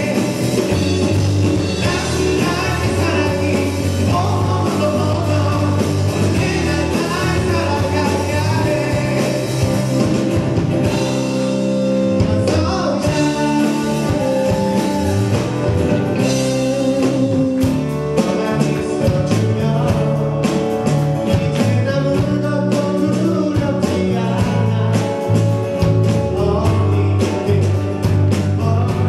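Live rock band playing a song with a sung lead vocal: drums, bass guitar, electric and acoustic guitars and keyboard, at a steady full volume.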